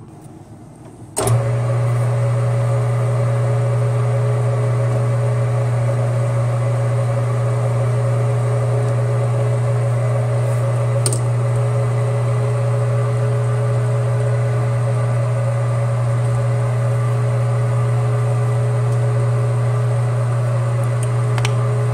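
Metal lathe switched on about a second in and running steadily, with a strong, even motor hum and a few steady higher tones.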